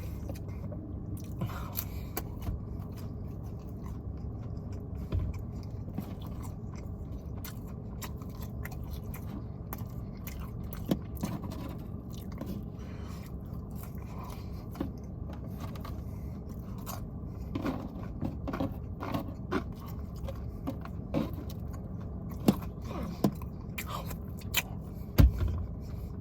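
Close-up chewing and wet mouth sounds of a person eating a chicken Big Mac, with short clicks and crunches. The clicks come more often in the last ten seconds, over a steady low hum.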